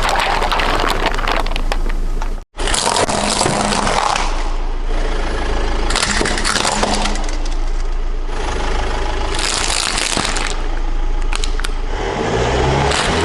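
A car engine running under load, with repeated bursts of crunching and cracking as the tyres roll over and crush objects: three bursts a few seconds apart.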